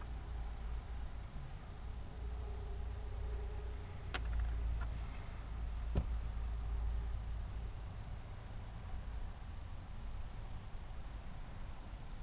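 Faint, evenly spaced cricket chirps over a steady low rumble, with two sharp clicks about four and six seconds in.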